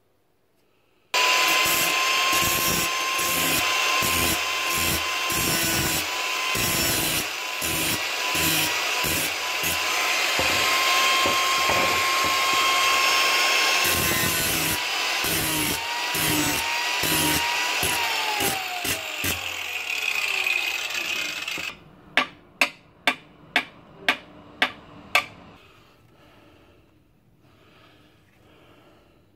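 Electric grinder grinding the old drawknife, a steady whine with an uneven pulsing rasp as the work is pressed to it. The motor is switched off and its whine falls in pitch as it winds down. Then come seven sharp, evenly spaced taps.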